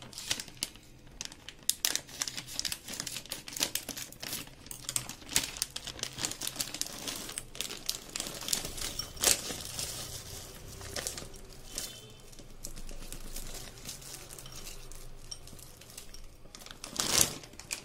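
Plastic packet of frozen sweet corn crinkling as it is opened and handled, with the kernels being poured and clicking into a glass bowl. A louder rustle comes near the end.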